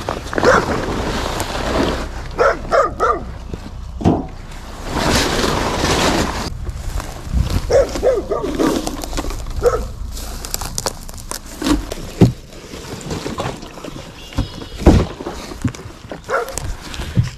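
Footsteps and rustling through dry brush and leaf litter, with many sharp snaps and crackles. A few short whining vocal sounds come at about three seconds and about eight seconds in.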